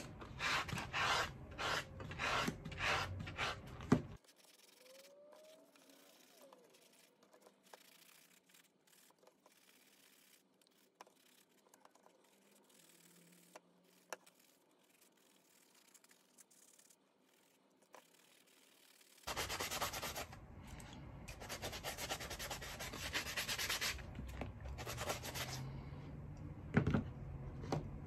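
A rusty steel chisel blade being scrubbed with an abrasive sanding sponge in lemon juice and rock salt to strip the rust. It starts with rhythmic rubbing strokes, about two a second. After about four seconds there is a long quiet stretch. The scrubbing resumes, denser, about two-thirds of the way in.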